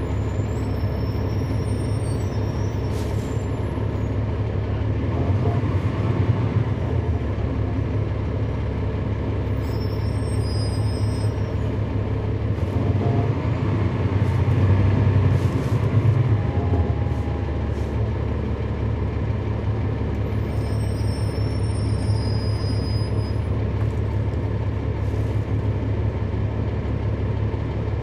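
Cummins ISL9 diesel engine of a 2011 NABI 416.15 transit bus heard from on board, running with a steady low drone that grows louder twice, about five seconds in and again around the middle.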